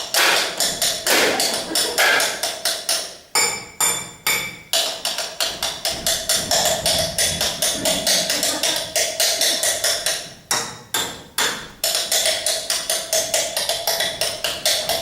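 Cutlery tapping on glasses and tableware, played as rhythmic percussion: a fast, steady run of sharp taps with a ringing tone under them. Three clear ringing strikes come about four seconds in, and three heavier strikes come around eleven seconds.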